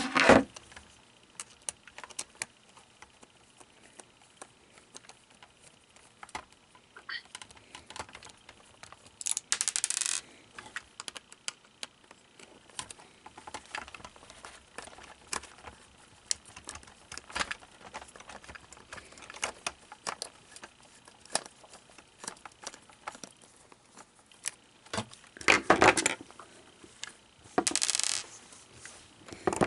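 Scattered clicks, taps and light rattles of small plastic parts and tools being handled while an animatronic figure's head mechanism is worked on, with a few short scraping rustles about nine seconds in and again near the end.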